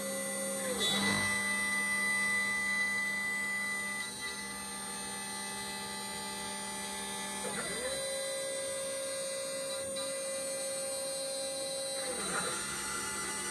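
A 2.2 kW water-cooled spindle on a WorkBee 1015 CNC router running with a steady high whine as its end mill cuts 1-inch aluminum stock. Lower machine tones glide down and shift in pitch about a second in, again about halfway, and near the end.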